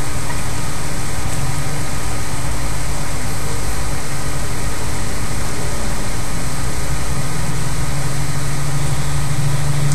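Steady, loud background hum and hiss, the same machine-like noise that lies under the narration; a low hum grows stronger in the second half.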